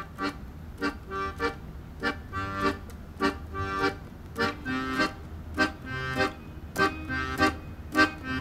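A free-reed keyboard instrument, accordion-like in tone, playing a phrase of short, detached notes and chords, about two a second, over a steady low rumble.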